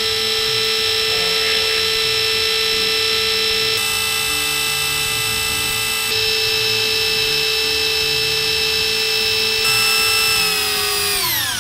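Makita electric drill turning a priming shaft in a big-block Mopar engine's distributor hole, spinning the oil pump to push oil up to the rocker arms before the engine goes on the dyno. The drill motor runs at a steady pitch, then winds down with falling pitch near the end.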